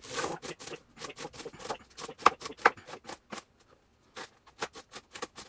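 Kitchen knife chopping cabbage finely on a cutting board: a quick run of knife strikes, about five or six a second, pausing briefly about three and a half seconds in before resuming.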